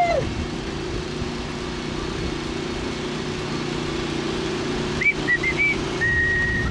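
A steady low engine hum. About five seconds in, someone whistles a few short rising notes, then holds one long whistled note near the end.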